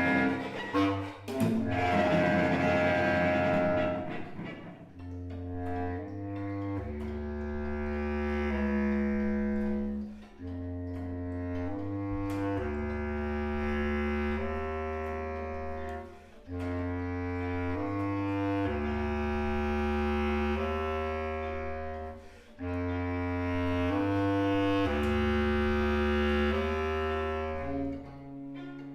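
Instrumental music with low sustained bass notes under slower higher lines, in phrases that break off briefly and start again about every six seconds.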